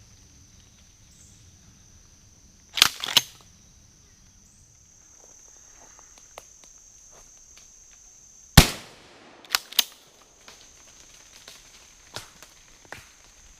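A single loud gunshot about two-thirds of the way in, from a squirrel hunter's gun, echoing briefly. A cluster of sharp knocks comes about three seconds in, and a couple more follow soon after the shot. A steady high insect drone runs underneath.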